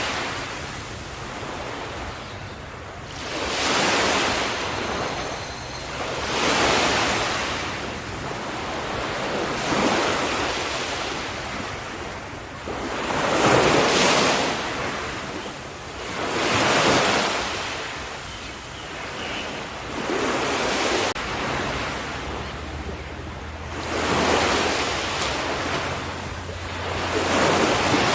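Ocean waves washing onto a shore, the surf swelling and fading in a regular surge about every three to four seconds.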